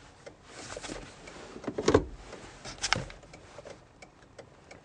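Two soft knocks about a second apart, with faint rustling and handling noise inside a parked car.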